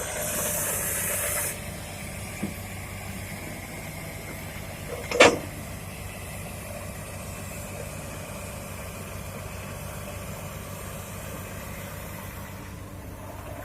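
Heavy diesel machinery running steadily at low revs, with a high hiss lasting about a second and a half at the start and one sharp metallic clank about five seconds in.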